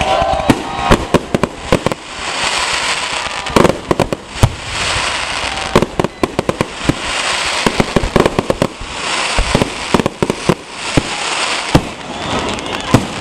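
Aerial firework shells bursting overhead: sharp bangs in quick irregular clusters, with stretches of hiss between the volleys.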